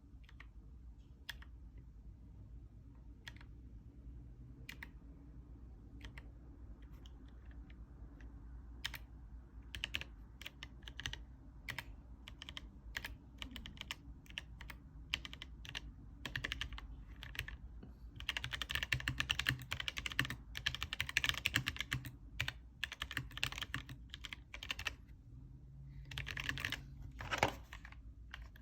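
Keychron K3 Pro low-profile mechanical keyboard with red linear switches being typed on. Single keystrokes come about a second apart at first, then quicken into faster typing, with a dense run of rapid typing in the second half.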